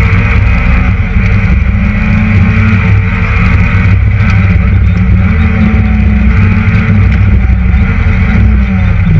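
Citroën Saxo VTS rally car's four-cylinder engine running hard at high revs, heard from inside the cockpit, with a few brief dips in pitch between stretches of pulling.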